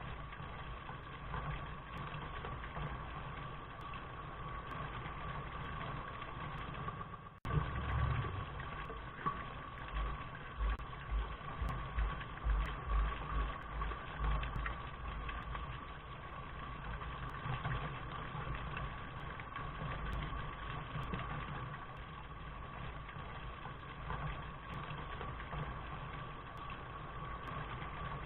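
Steady rain noise with a low rumble underneath. A brief cut about seven seconds in is followed by several seconds of irregular low thumps.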